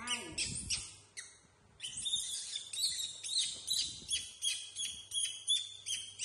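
Rapid high-pitched chirping calls, several a second, thickest from about two seconds in.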